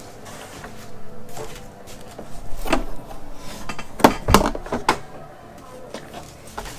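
A few knocks and clunks of a metal part being handled and turned over on the work surface, the loudest cluster a little past the middle.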